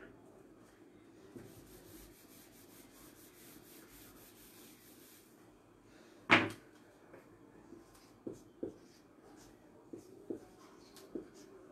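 Faint rubbing of an eraser wiping a whiteboard, then a single sharp knock about six seconds in, followed by short marker-pen strokes on the board near the end.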